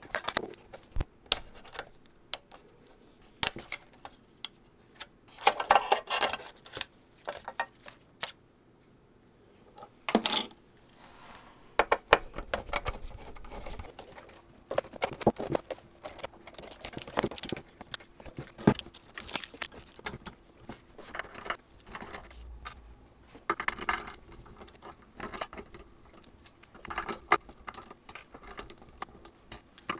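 Irregular clicks, taps and metallic clinks of small metal parts and tools being handled while an iMac is taken apart, with a few short scrapes.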